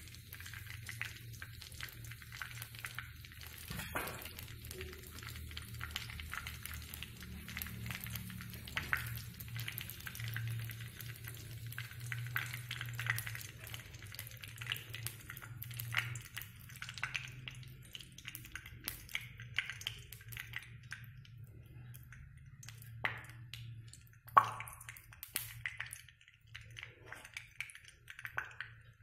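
Ghee heating in a non-stick kadai with a faint crackling sizzle over a steady low hum; the sizzle thins out near the end. A single sharp knock, the loudest sound, comes a few seconds before the end.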